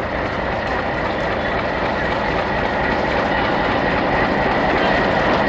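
WDM-3A diesel-electric locomotive running as it rolls slowly into the station, drawing nearer and growing gradually louder. A steady high whine sits over the engine sound.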